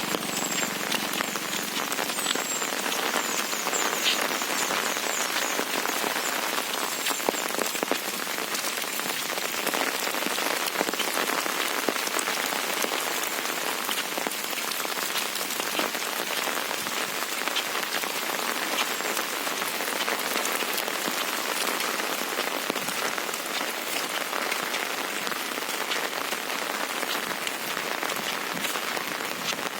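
Steady rain, an even hiss dotted with countless small drop patters that holds throughout.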